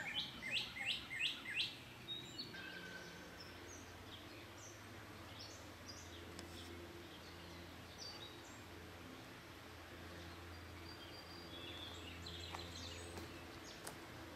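Songbird singing a fast run of repeated down-slurred whistled notes for the first two seconds, then scattered faint bird chirps over a steady low hum of outdoor ambience.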